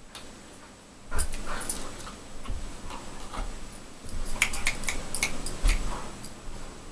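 Dog moving about during a treat trick: a run of sharp, irregular clicks and taps starting about a second in, densest in the second half.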